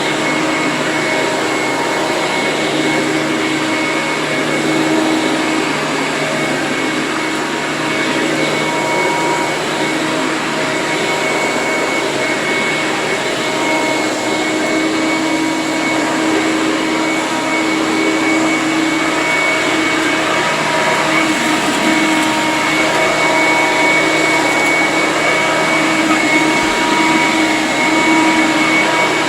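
Eureka The Boss 10-amp soft-bag upright vacuum cleaner running steadily at full power, a loud airy rush with a steady motor whine over it.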